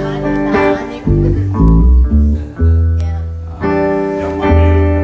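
Hollow-body archtop electric guitar played through an amplifier, notes and chords changing every fraction of a second, with deep held bass notes underneath from about a second in.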